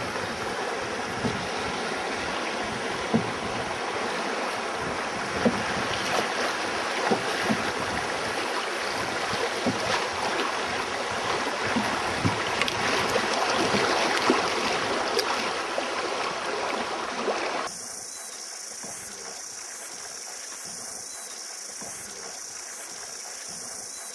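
Rushing river water around a canoe, with occasional sharp knocks and splashes. About three-quarters of the way through it cuts suddenly to a quieter, steadier water sound.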